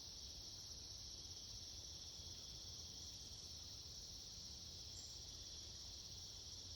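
Faint, steady chorus of crickets or other insects, a continuous high-pitched drone with a low rumble beneath it.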